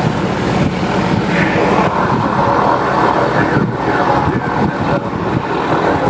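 Single-engine floatplane's piston engine and propeller running as it skims across the water on its floats, a steady drone.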